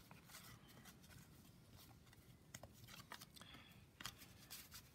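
Near silence with faint rustling and a few light clicks from baseball cards being handled.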